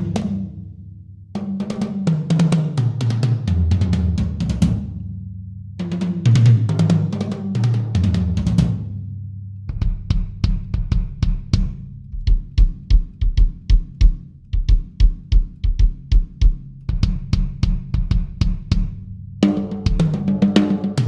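Yamaha Stage Custom drum kit being played: two fills that fall in pitch as they move down the toms, then from about ten seconds in a steady groove of regular bass drum strokes under snare and cymbals, with a busier fill near the end.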